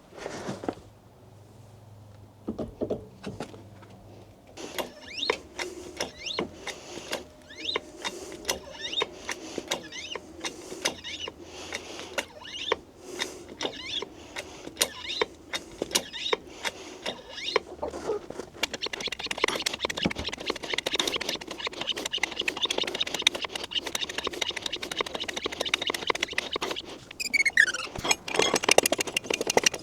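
Hydraulic pull-back ram kit under load: a series of sharp metallic clicks and creaks, about one a second, as the pump is worked and the chained body panel takes the tension, growing denser over a steady hiss in the second half, with a short falling squeak near the end.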